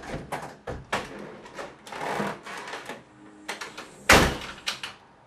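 A string of knocks, clicks and steps in a small room, then a door slams shut about four seconds in.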